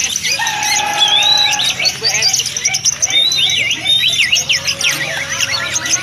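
Oriental magpie-robin singing a varied song of clear whistles: a long held note near the start, then quick notes sweeping up and down from about three seconds in.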